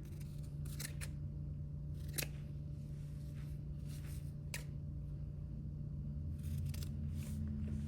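Scissors snipping through a wound bundle of yarn loops, several separate cuts spaced out over a few seconds, cutting the loops open to make tassel strands.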